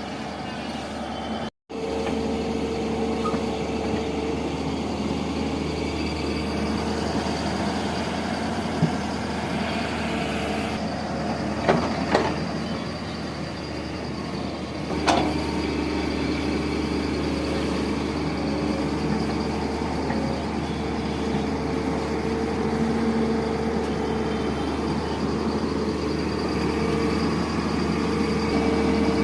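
Hydraulic excavator's diesel engine running steadily, with a hydraulic whine that comes and goes and a few sharp metallic knocks.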